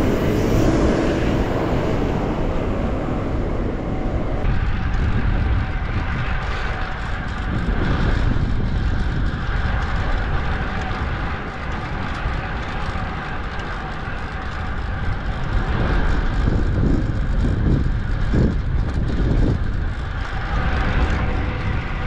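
Street traffic, with cars passing, heard while riding a bicycle, and wind rushing over the action camera's microphone; a steady noise, heaviest at the bottom end, with no words.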